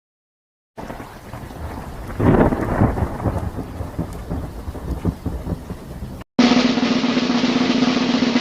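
Thunderstorm sound effect: steady rain with a long roll of thunder that swells about two seconds in and fades away. Near the end it cuts off abruptly, and a different noisy effect with a steady low hum takes over.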